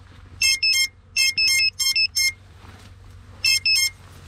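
A crashed FPV drone's lost-model alarm beeping: loud, high-pitched electronic chirps in quick groups, two near the start, a run of about five in the middle and two more near the end. The alarm sounds so that the downed drone can be found.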